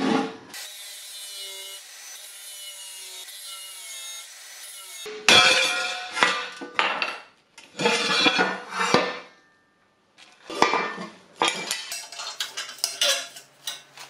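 Handheld straight die grinder grinding the edge of a welded steel sheet-metal housing in repeated short passes, each a loud gritty scrape, with a brief pause about two-thirds of the way through.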